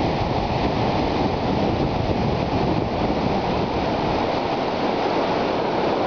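Steady rushing of a big surge of turbulent water churning and breaking in waves.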